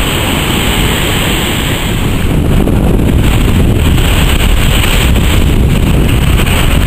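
Heavy ocean surf breaking, a continuous roar of waves and whitewater, with wind buffeting the microphone; it gets a little louder about two seconds in.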